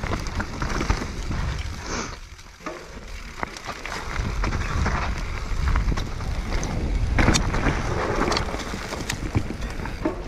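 Mountain-bike trail noise: wind rumbling on the microphone, with scattered clicks and rattles from bikes on a dirt trail.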